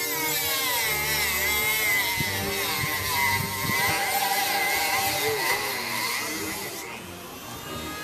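An engine running, its pitch sweeping up and down several times and then settling steadier.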